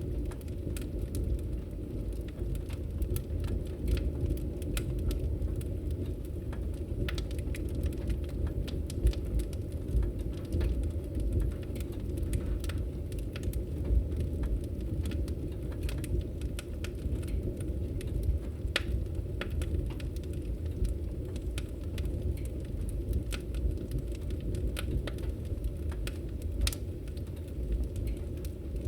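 Wood fire burning in a fireplace: a steady low rumble with frequent irregular crackles and pops.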